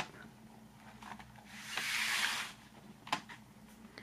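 Cardboard DVD digipak being unfolded by hand on a wooden table: a soft swish of the panel sliding and rubbing about two seconds in, then a single light click.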